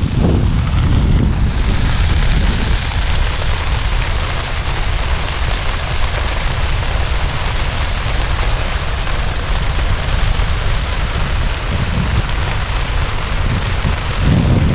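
Wind buffeting the microphone in an uneven low rumble, joined about a second in by a steady, even hiss.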